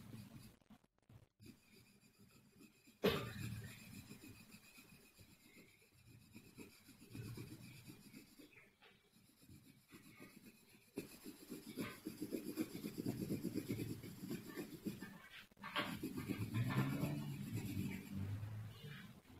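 Graphite pencil scratching and rubbing on drawing paper in uneven strokes as a leaf outline is drawn, with a sharp tap about three seconds in.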